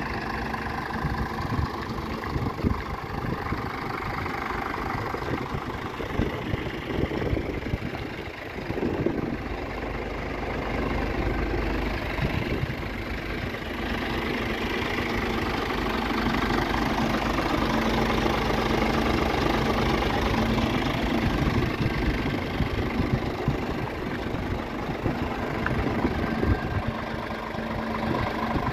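Scania R 450 tractor unit's 13-litre inline-six diesel idling steadily.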